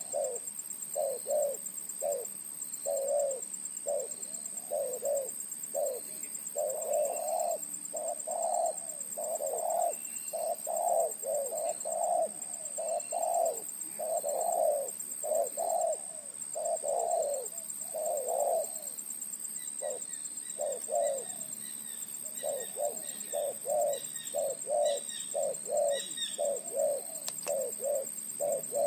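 Spotted dove cooing in an almost unbroken series of low, throaty coos. The phrases run longer through the middle and turn into quicker, shorter notes in the last third.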